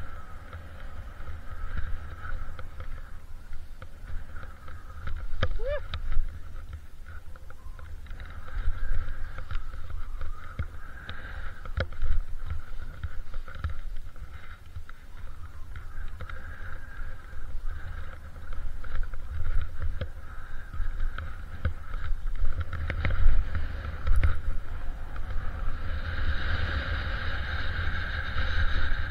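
Wide freeride skis (Ogso Spencer, 110 mm waist) sliding and scraping over wind-packed snow, with a rustling hiss that grows louder near the end, and a few small clicks and knocks. Wind buffets the microphone in a low, uneven rumble.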